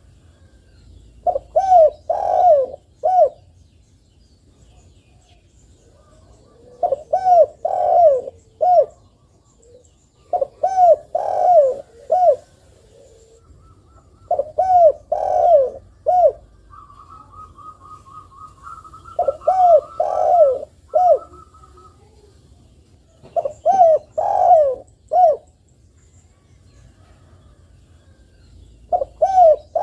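Spotted dove cooing: short phrases of about four low coos, repeated about every three to four seconds. A fainter, higher twittering call from another bird runs for a few seconds in the middle.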